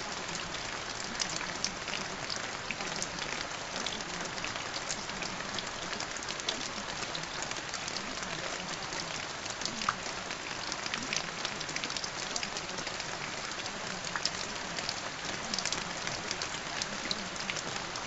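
Steady rain: an even hiss with many small drop ticks scattered through it.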